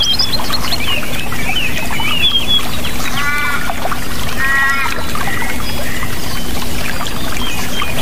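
Many songbirds chirping and twittering in quick overlapping calls over a steady rush of water. Two longer, layered calls stand out, about three and four and a half seconds in.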